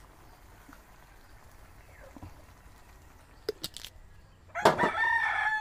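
A rooster crows near the end: one long call at a steady pitch that starts loud and carries on. Before it there is only low background with a couple of faint clicks.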